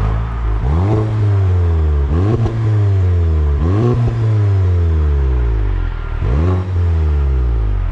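A VW Golf GTI (MK7) fitted with a Clubsport muffler, its 2.0-litre turbocharged four-cylinder revved in four quick blips. Each time the revs rise sharply and then fall slowly back, and the exhaust note sounds loud.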